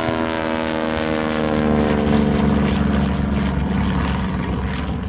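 Propeller airplane's engine on a low pass, its pitch falling steadily as it goes by, loudest about two seconds in.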